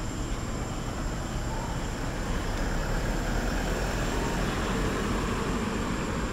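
Steady outdoor rumble of road traffic, swelling a little after about two seconds, with a thin steady high tone on top.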